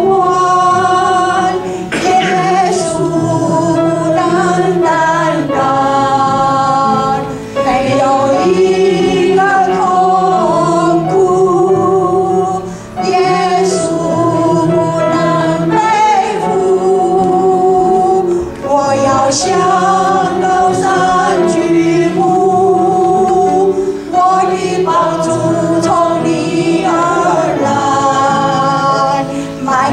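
A woman singing a slow worship song into a microphone, joined by a small choir and piano, in phrases of about five seconds with brief breaths between them.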